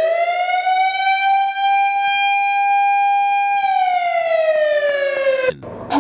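Tornado warning siren sounding a single tone that rises, holds level for about three seconds, then slowly falls, cut off abruptly about half a second before the end.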